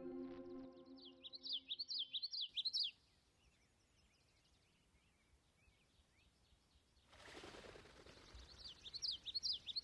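Background music fading out, then a small bird chirping in quick rising-and-falling notes. After about four seconds of near silence a soft rushing swell rises and the same chirping returns near the end, as the music track loops back.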